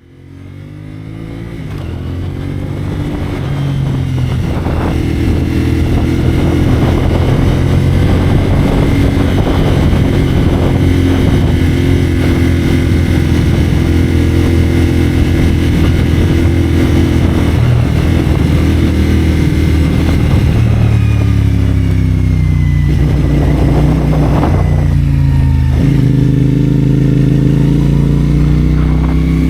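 CFMoto 450SR's parallel-twin engine running through a Yoshimura AT2 slip-on exhaust while riding, its pitch rising and falling with throttle and gear changes, with some wind rush. The sound fades in over the first few seconds.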